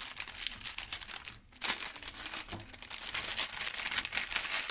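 A small foil-lined plastic snack packet crinkling as hands pull it open and handle it, with a brief pause about a second and a half in.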